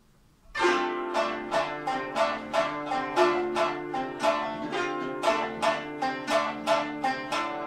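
Koto and shamisen playing together in an ensemble: the music comes in sharply about half a second in with a quick, even run of plucked notes, about three a second, over held lower notes.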